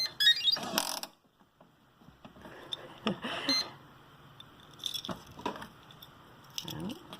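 Electronic cabinet lock's key reader giving a quick rising run of beeps, followed by scattered mechanical clicks and rattles. This is a wrong key being tried, and the lock stays shut.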